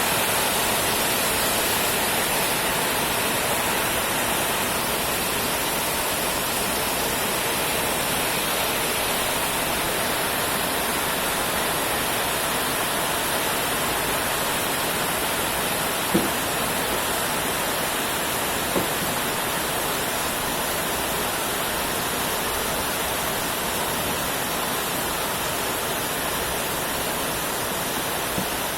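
Steady heavy rain falling, an even hiss without a break, with two brief louder drips or taps a little past the middle.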